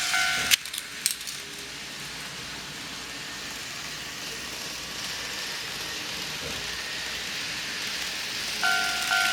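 Model railway automatic level crossing's electronic warning bell, a two-tone ding repeating about twice a second, cuts off about half a second in, followed by a few sharp clicks. A faint steady hiss follows, and near the end the warning bell starts again.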